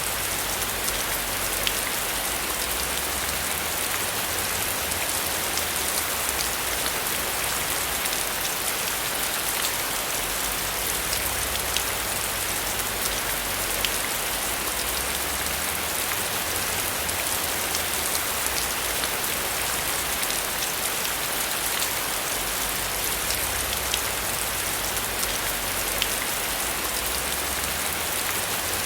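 Steady rain falling, an even hiss with many small sharp drop hits scattered through it.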